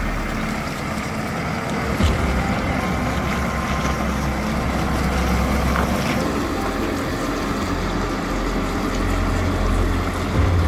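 JCB 4CX Stage V backhoe loader's diesel engine running steadily, with a short knock about two seconds in.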